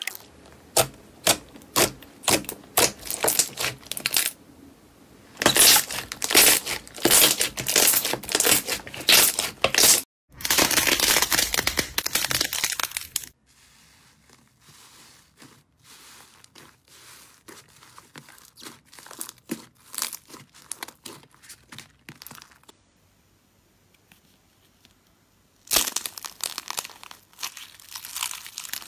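Hands squeezing and kneading slime: quick runs of sticky pops and clicks, then softer crackling as a foamy slime is pressed. Near the end comes loud crunching crackle as a slime with a hard cracked coating is crushed in the hand.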